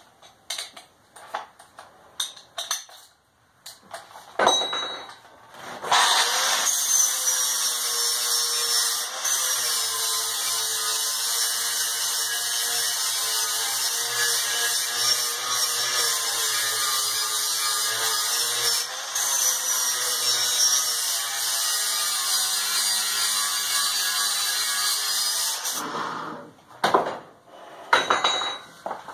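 Electric angle grinder with an abrasive disc grinding the welded steel body of a gas forge, cleaning up the welds. It runs steadily for about twenty seconds, its pitch dipping slightly now and then as it bears on the metal. Clicks and knocks of handling the tool come before it starts and after it stops.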